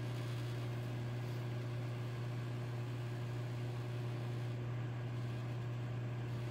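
Microwave oven running, a steady low hum with the fan and hiss behind it.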